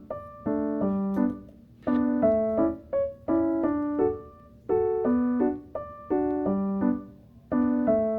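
Background music: a gentle keyboard tune of short piano-like chords struck in a steady, repeating rhythm.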